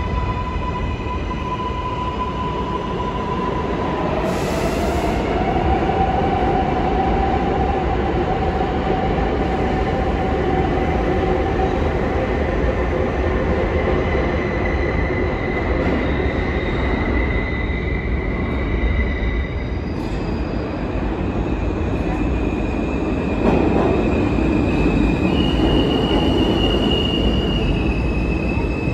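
New York City subway train running through the station, its wheels squealing in several sustained high tones that shift pitch over a steady rumble, with a louder swell near the end.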